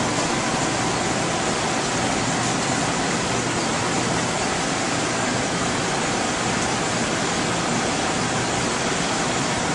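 Steady, even rushing noise of machinery and air handling, with a faint steady whine and no distinct events.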